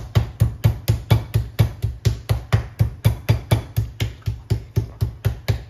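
Metal meat mallet pounding raw chicken breasts through plastic wrap on a plastic cutting board to tenderize them: a rapid, even run of thuds, about four to five a second.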